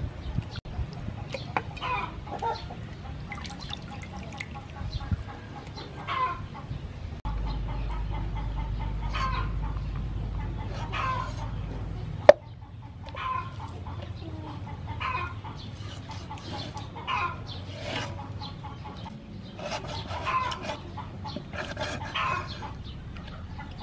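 Chickens clucking, short calls repeating every second or two. One sharp knock stands out about halfway through.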